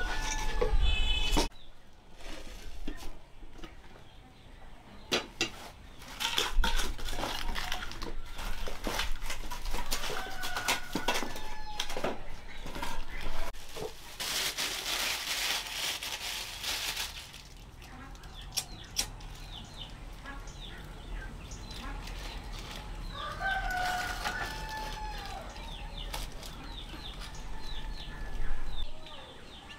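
Chickens clucking and calling, with a rooster crowing, scattered knocks and a noisy rustle about halfway through.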